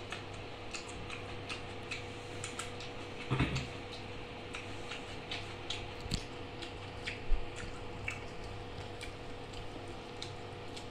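Eating by hand: fingers mixing rice on a plate and chewing, a run of small wet clicks over a steady low hum. A thump about seven seconds in.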